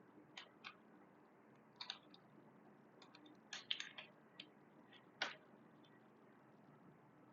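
Scattered short clicks from a computer's mouse and keyboard against faint room hiss, with a quick run of several clicks about three and a half seconds in.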